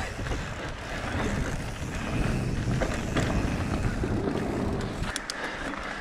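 Haibike AllMtn 3.5 e-mountain bike ridden along a trail: a steady low rumble of tyres rolling over the ground, with a few sharp clicks about five seconds in.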